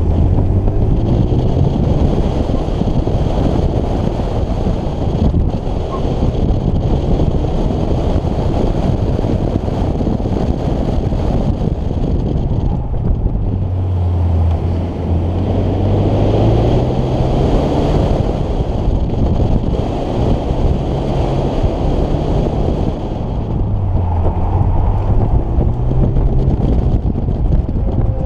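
Hyundai Genesis Coupe 2.0T's turbocharged four-cylinder engine pulling hard under load, its pitch rising and falling repeatedly as the driver accelerates and lifts. Heavy wind buffets the car-mounted microphone throughout.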